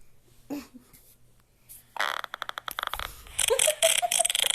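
Fart sound effect played from a phone app: a buzzy, rapid run of pulses starting about two seconds in and lasting about a second, followed by a higher, wavering tone near the end.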